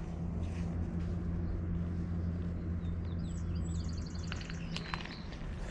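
Steady low mechanical hum, with a bird giving a short run of rapid high chirping notes about three seconds in and a few faint clicks after it.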